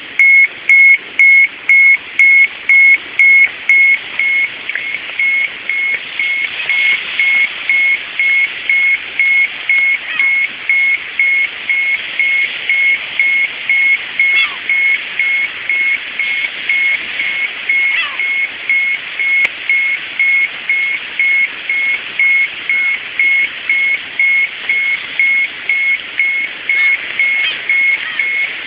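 Ukrainian-made handheld radiation dosimeter's alarm beeping steadily, about two high-pitched beeps a second: the dose-rate alarm set off by a reading of 0.4 microsieverts per hour, about twice the normal background. The beeps become somewhat quieter about four seconds in.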